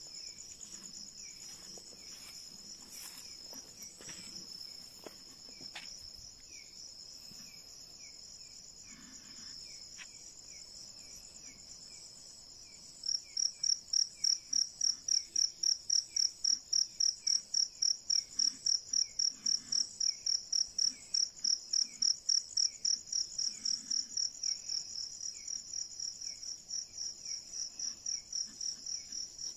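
Night insects calling: a steady high-pitched trill of crickets runs under a softer repeating chirp. About 13 seconds in, a much louder pulsing insect call starts close by at about four pulses a second and keeps going. A few faint knocks come in the first few seconds.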